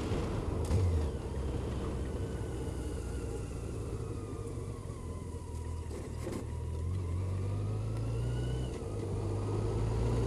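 Motorcycle engine running at low revs through a bend, its note rising from about seven seconds in as the bike pulls away, with a single short knock about six seconds in.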